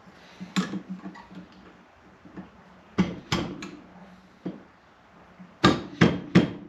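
Hammer blows on a truck door hinge, knocking out the worn hinge-pin bushings. There is a single blow about half a second in, a quick run of three about three seconds in, another a second later, and three hard blows near the end.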